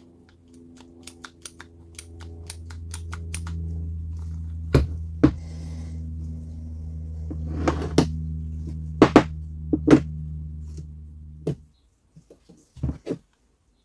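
Cordless drill's gearbox, chuck and plastic housing parts being handled: a run of quick clicks, then several sharp knocks and a few small clicks near the end. A steady low hum runs underneath and cuts off abruptly near the end.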